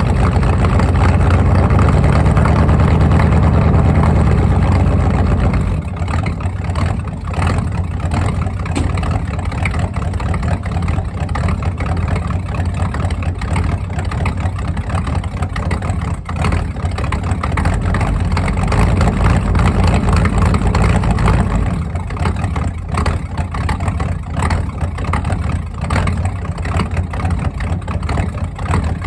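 Ford 302 V8 in an F-150 running on a cold start, heard at the exhaust. It is held at a raised idle for the first five or six seconds, then drops to a lower, uneven idle. It is raised again for a few seconds past the middle and drops back. The engine makes noise the owner did not like, which he traced to a faulty PCV valve.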